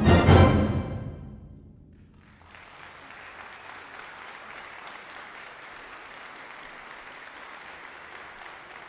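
A wind band's loud final chord cuts off and rings away in the hall's reverberation, then about two and a half seconds in the audience breaks into steady applause.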